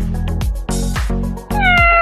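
Upbeat electronic music with a steady bass beat, and about one and a half seconds in a single cat meow that falls slightly in pitch and carries on past the end.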